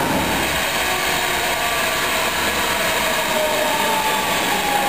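NYC subway train of Kawasaki R160B cars with Siemens traction motors arriving and braking: the motors' electric whine slowly falls in pitch over a steady hiss of wheel and track noise.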